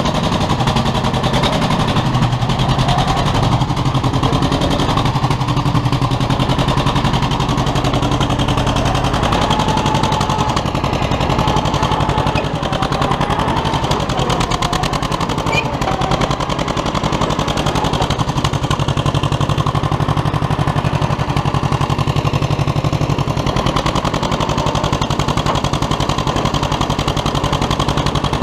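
1957 John Deere 420 crawler dozer's two-cylinder gas engine running, with a rapid, even popping exhaust beat. Its note changes about ten seconds in.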